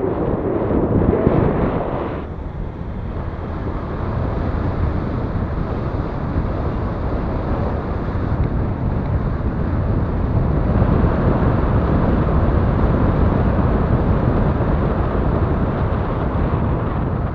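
Wind rushing over the microphone of a camera held outside a moving vehicle, mixed with the vehicle's running and road noise. It dips briefly about two seconds in and grows stronger again later.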